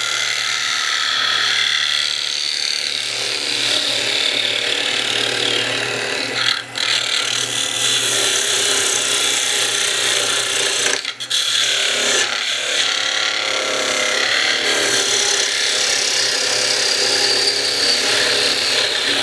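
Wood lathe running while a parting tool is fed into the face of the spinning wood blank, a steady scraping hiss of the cut over the lathe's low hum. The cut breaks off briefly twice, about six and eleven seconds in.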